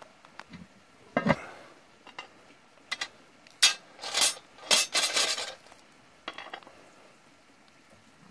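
Metal lid lifter knocking and scraping on the cast-iron lid of a charcoal-topped Dutch oven. There is a sharp clank about a second in, then clicks and a stretch of scraping and clinking in the middle, with a couple of small clicks later.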